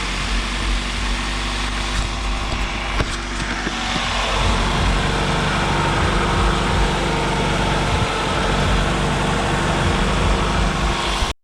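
Car engine idling with its electric radiator cooling fans running, the engine warming up after a coolant hose replacement. A rushing fan noise grows louder about four and a half seconds in, and the sound cuts out abruptly right at the end.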